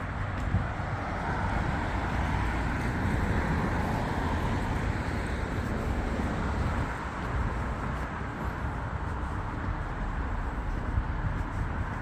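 Night-time ambience of distant city traffic and river ships: a steady low rumble with a broad hiss that swells a couple of seconds in and eases off again.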